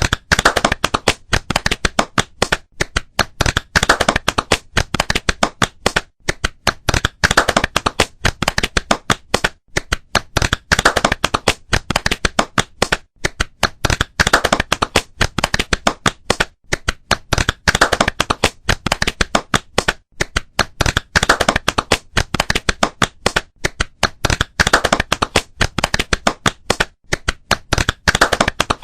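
Flamenco palmas: rhythmic hand-clapping in quick, sharp strokes. The claps fall into a repeating phrase whose louder accents come back about every three and a half seconds.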